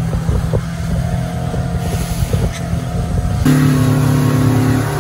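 Outboard motor of a motorboat running at speed, a steady low engine hum under rushing wind and water. About three and a half seconds in the sound cuts to a louder, steadier engine hum as the motor pulls a towed tube through the wake.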